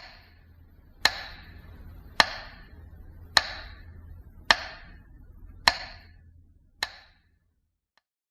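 A metronome ticking slowly: seven sharp ticks a little over a second apart over a faint low hum, stopping about seven seconds in.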